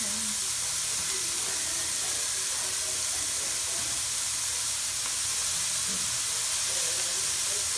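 Diced vegetables sizzling steadily in hot olive oil in a pan.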